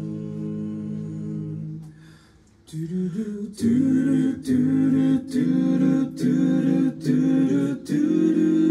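Barbershop quartet of four men's voices singing unaccompanied in close harmony. A softer held chord fades out about two seconds in. After a short pause the quartet sings louder chords in short separated notes about every half second, ending on a long held chord.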